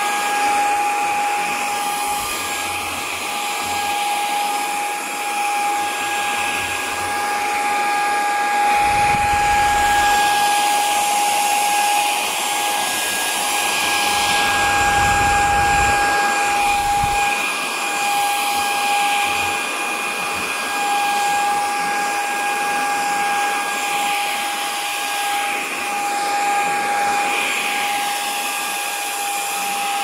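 A 550 W cordless stick vacuum running: a steady, high motor whine over rushing air as its floor head is pushed across rugs and carpet. A dull low rumble comes in twice, about a third of the way in and again around the middle.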